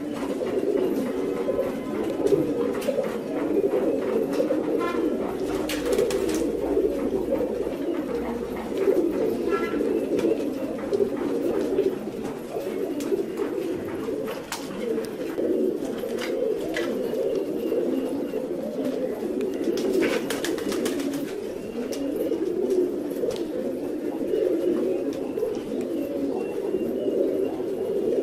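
Fancy pigeons cooing in a continuous, overlapping chorus, with a few short clicks now and then.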